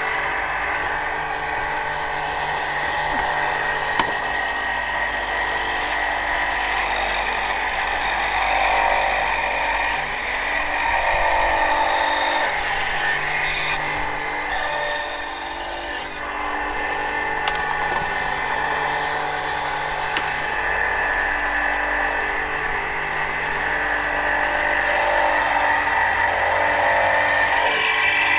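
EzyLif VBS8 8-inch band saw running steadily, its blade cutting through wooden boards fed by hand. The sound changes briefly about halfway through.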